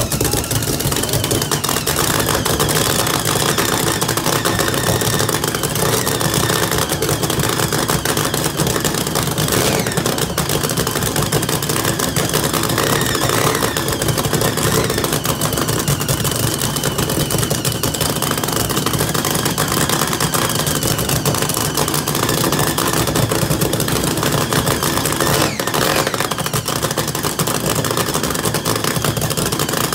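Supercharged V8 of a blown flat-bottom drag boat, run on its trailer out of the water, idling with a rapid, choppy, loping beat.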